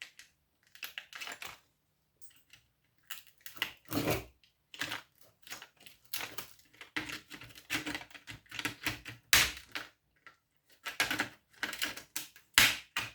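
Irregular clicking, clattering and scraping of small metal parts and a circuit board being handled and pried apart while copper components are pulled out, with a few louder knocks.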